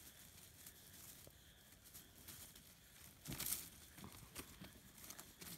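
Low rustling, then a louder burst of crackling rustles about three seconds in, followed by scattered light rustles and clicks: southern brown bandicoots (quenda) scuffling through dry undergrowth.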